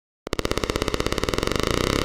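Electronic police-siren effect from a bass-boosted speaker-test track. It starts suddenly about a quarter-second in as rapid pulses that speed up until they merge into a continuous buzzing tone.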